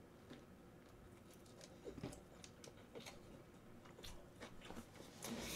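Faint chewing of a mouthful of mini gimbap (seaweed-wrapped rice roll), with soft mouth clicks scattered through and a little louder near the end.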